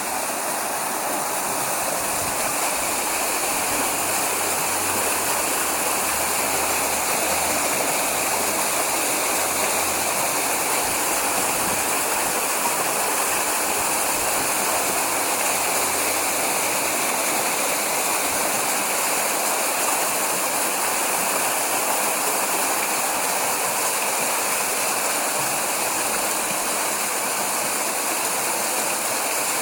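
Water rushing along a narrow stone mill race under a wooden water wheel: a steady, even rush of water.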